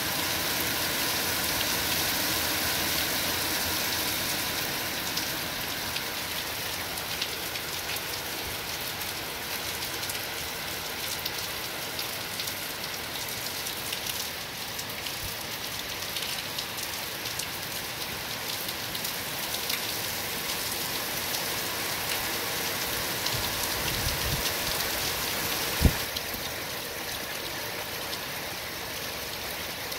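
Heavy rain falling steadily on wet paving and trees, with a single sharp knock near the end.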